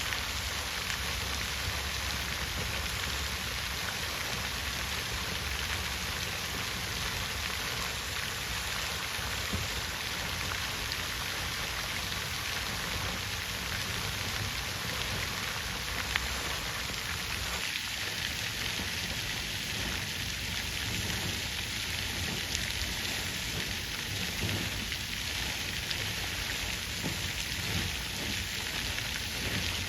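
Water fountain splashing steadily: falling water spattering into a pool, an even hiss with a few faint drips standing out.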